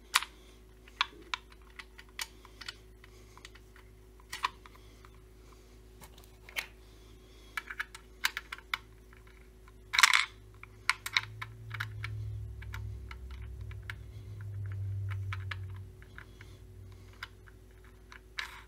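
Scattered light clicks and taps from hands handling a chainsaw's bar nuts and plastic clutch cover, with one sharper click about ten seconds in. A low hum swells for a few seconds after the middle.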